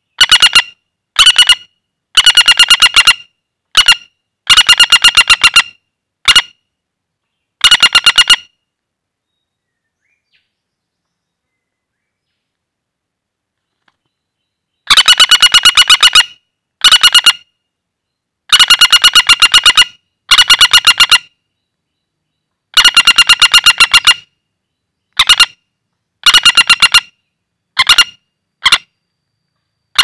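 Common flameback woodpecker calling in loud, rapid rattling trills, given in bursts of under a second to about a second and a half, with a pause of several seconds partway through.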